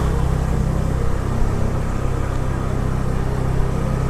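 Motorbike engine running steadily while riding, a constant low hum under road and wind noise.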